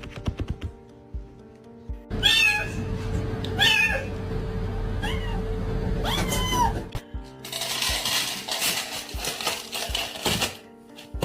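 A domestic cat meowing four times, about a second and a half apart, over background music. A stretch of noisy hiss about three seconds long follows.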